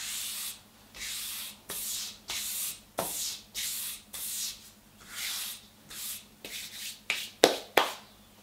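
A hand rubbing back and forth across the flat top of a wooden block in a dozen or more quick strokes, about two a second, with a few shorter, sharper scrapes near the end.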